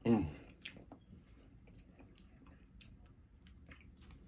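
Faint wet chewing of seafood-boil food with soft squishy mouth sounds and scattered small clicks, after a brief voiced hum right at the start.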